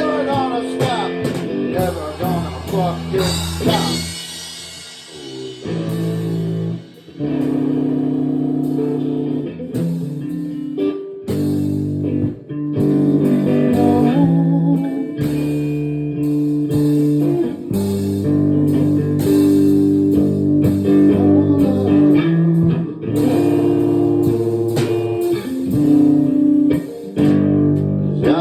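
A band playing an instrumental blues-style passage led by guitar, with sustained chords that change every second or two and bending notes in the first few seconds.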